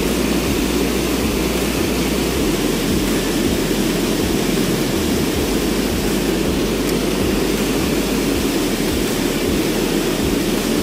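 Steady rush of a small weir waterfall pouring into a stream pool, an even roar of falling water with no breaks.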